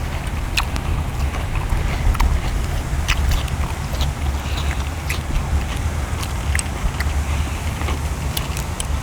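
People chewing and eating, with short scattered clicks of utensils and food over a steady low rumble.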